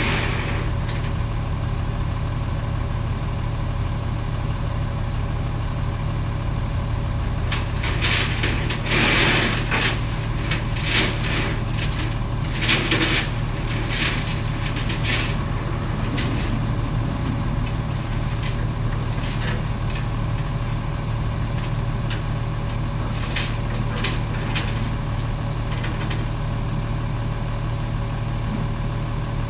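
Rollback tow truck's engine idling steadily, with a run of sharp knocks and rattles from about eight to sixteen seconds in.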